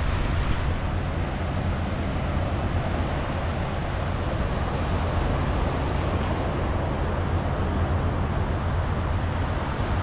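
Small waves breaking and washing up a sandy beach in a steady rush of surf, with wind rumbling on the microphone.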